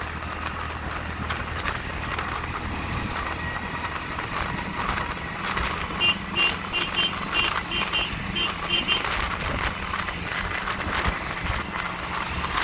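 Auto-rickshaw ride: its small engine running with road and traffic noise. About six seconds in, a high electronic beeping repeats about three times a second for some three seconds.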